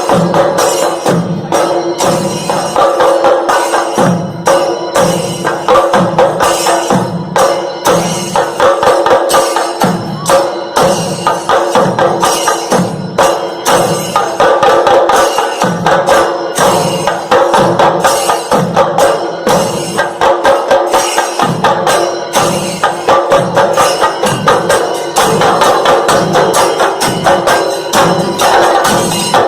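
Instrumental background music with quick, steady percussion strokes over sustained held tones.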